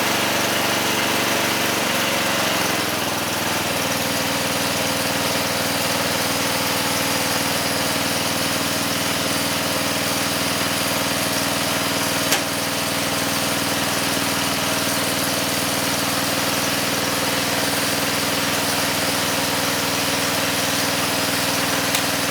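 Western Auto Wizard riding mower's 12 hp engine, just after a cold start, dropping from a faster run to a lower idle about two to three seconds in, then idling steadily. A single short click about twelve seconds in.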